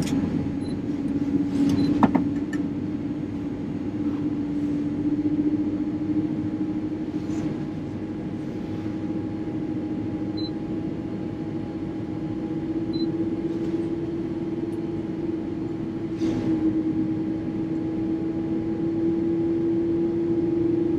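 Boeing 787 jet engines spooling up during engine start, heard from the cockpit: a steady whine that rises slowly in pitch over the cabin air hum. A few clicks come in the first two seconds.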